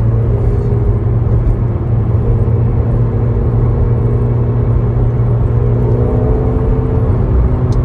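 McLaren's engine and road noise heard inside the cabin while cruising at a steady speed: a steady low drone with tyre hiss.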